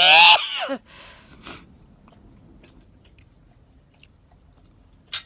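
A woman's sneeze: a rising "ah" breaks into a loud explosive burst at the very start. Then quiet, with a few faint ticks and one sharp click near the end.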